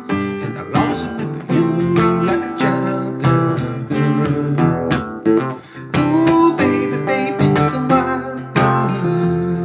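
Music: an instrumental passage led by strummed acoustic guitar, with no singing.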